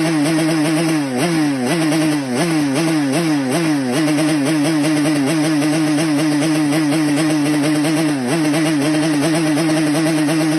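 Yamaha RX-King's single-cylinder two-stroke engine running at a fast idle, blipped on the throttle in a quick run of short revs about a second in and once more near the end.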